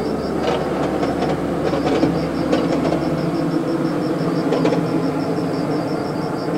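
A red Ofunato Line BRT bus passing along the road below, its engine and tyre noise swelling in the first couple of seconds and holding steady. A rhythmic high chirping repeats several times a second over it.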